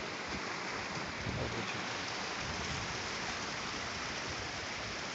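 Steady rushing of a small hillside stream, an even water noise.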